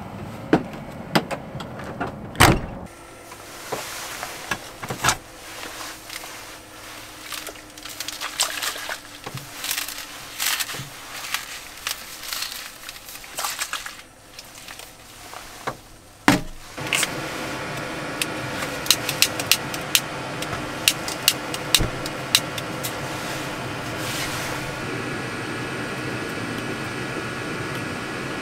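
Camping gear clattering and knocking as it is handled, with loud single knocks about two and a half seconds in and again about sixteen seconds in. Then a small portable gas heater on a canister starts to hiss steadily, with a quick run of sharp clicks as it is lit, and keeps burning.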